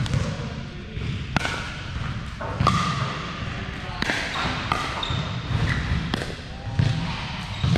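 Pickleball paddles hitting the ball in a rally: a string of sharp pops about every second and a half, over background chatter of players.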